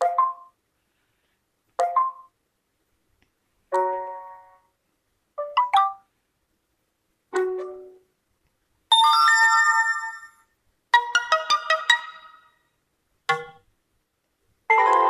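UMX phone notification tones played one after another, each a short electronic chime with a gap of silence before the next. From about nine seconds in the tones are longer and brighter, with several quick notes each.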